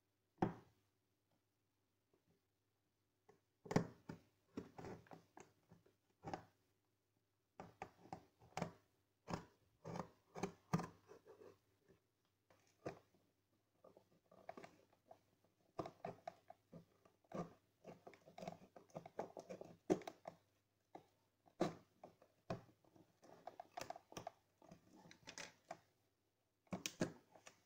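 A box cutter slitting the packing tape on a cardboard shipping box, then the cardboard flaps being worked open: short, irregular scrapes and crackles.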